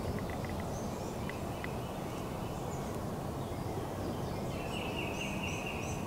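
A wild turkey gobbles once near the end, a rapid rattling call lasting about a second and a half, over a steady outdoor background rush with small birds chirping faintly.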